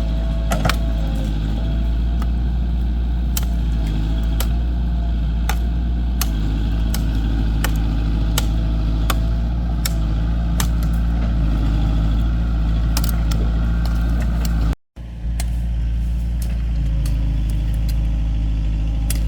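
Heavy engine running steadily with a deep rumble, with scattered sharp metallic clicks and knocks over it. The sound cuts out briefly near the end, then the engine carries on.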